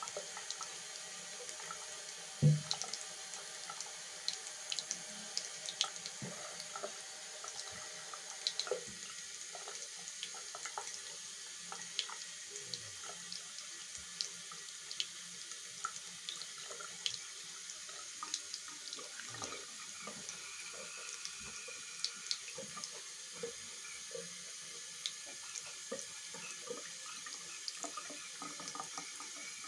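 Thin stream of tap water running steadily from a brass faucet into a sink basin, with many small irregular splashes and ticks. One low thump about two and a half seconds in.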